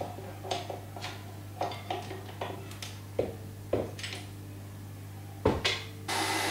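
Light clicks and knocks of a whisk attachment and bowl being fitted to a tilt-head stand mixer, then a louder knock as the mixer head is lowered. Near the end the stand mixer switches on and runs steadily, whisking cream.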